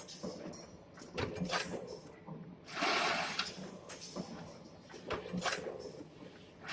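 Automatic wire hanger making machine running through its cycle. A loud rush of hiss about a second long comes roughly every four seconds, with sharp mechanical clicks and knocks in between.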